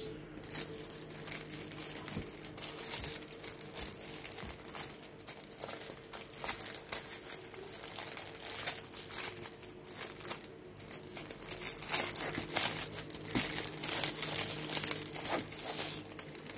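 Plastic film and packaging crinkling and rustling as diamond painting canvases and kit packets are handled, in irregular bursts that grow busier in the second half.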